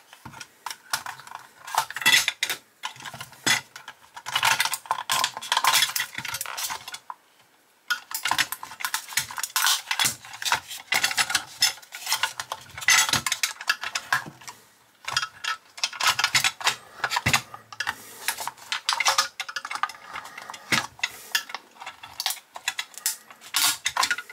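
Hands taking apart a 1:18 diecast model car: its black plastic interior and chassis parts clicking, knocking and rattling against the metal body in irregular bursts, with a brief pause about seven seconds in.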